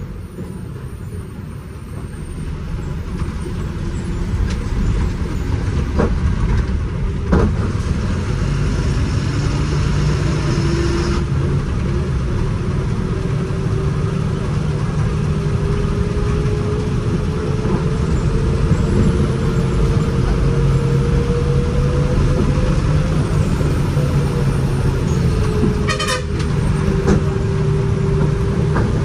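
Diesel engine of a KSRTC Sarige bus heard from on board on a hairpin ghat road, running under load with a steady rumble. Its note rises slowly for over ten seconds, then drops and settles near the end. Two sharp knocks come about six and seven seconds in, and a brief rattle near the end.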